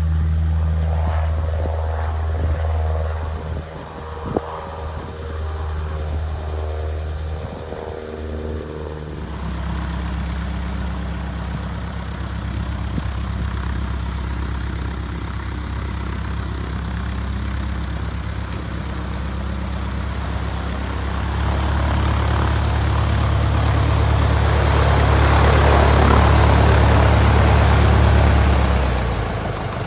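CubCrafters tailwheel light aircraft's piston engine and propeller. At first it is distant, with the engine's pitch falling. Then it runs steadily at low power while taxiing, growing louder as it comes close, loudest shortly before the end.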